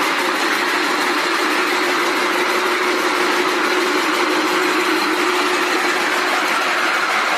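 Rope braiding machines running: a loud, steady, dense mechanical noise from the bobbin carriers and drive gearing, with a faint steady hum underneath.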